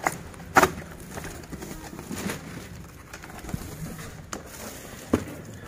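A power amplifier's packaging being handled and opened: a few separate sharp knocks and scrapes, the loudest about half a second in.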